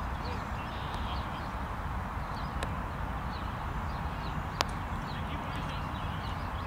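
Open-air field ambience: steady noise with faint, scattered bird chirps, and one sharp crack about four and a half seconds in.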